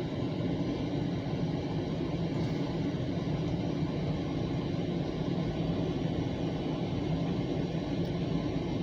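CSX mixed manifest freight train rolling past, a steady low rumble of the passing cars.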